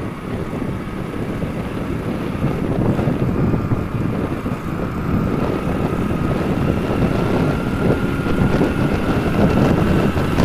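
Motorcycle riding at road speed, heard from the rider's seat: wind buffets the microphone over the engine, with a faint steady whine that rises slowly in pitch as the bike gains speed.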